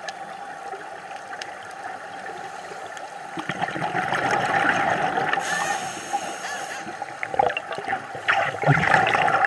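Scuba diver breathing through a regulator underwater: a burst of bubbling exhalation about three seconds in, a hissing inhale, then another burst of exhale bubbles near the end.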